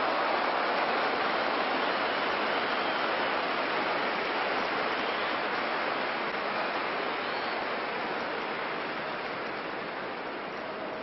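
Stadium crowd roar, a dense wash of many voices, loudest at the start and slowly dying away.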